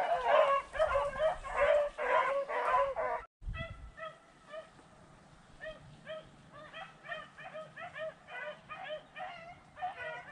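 A pack of beagles baying on a rabbit's trail in a string of short, repeated cries. The cries are louder for about the first three seconds, then break off suddenly and carry on fainter.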